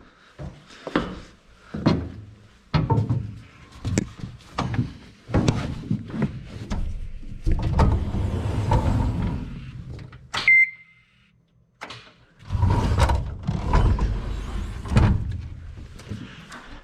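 Hand tools clanking and knocking against metal, with stretches of scraping and rattling, and one sharp ringing metallic ping about ten seconds in.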